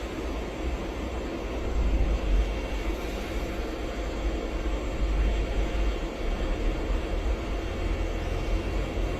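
Deep, steady rumble with a noisy hiss and clatter laid over it, the kind recorded during strong earthquake ground shaking.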